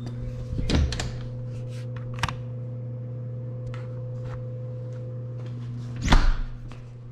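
Scattered knocks and two heavier thumps, about a second in and again about six seconds in, over a steady low hum.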